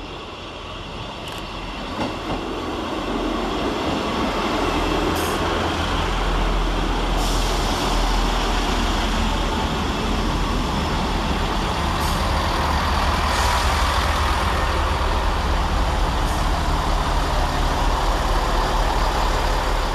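Two coupled Class 158 diesel multiple units arriving: engine and wheel-on-rail noise grows louder over the first several seconds, then runs steadily as the train draws into the platform.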